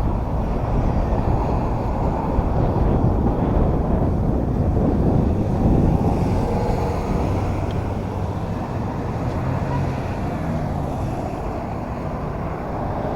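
A lake cruise boat's engine running steadily under way, with wind rumbling on the microphone.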